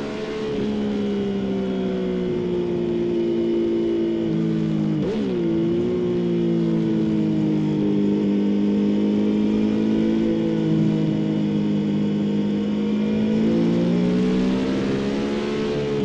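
A 2016 Yamaha XSR900's 847 cc inline-three engine running through a Scorpion slip-on exhaust while riding. Its note eases down at first, dips and jumps sharply about five seconds in, holds fairly steady, then climbs again near the end as the bike accelerates.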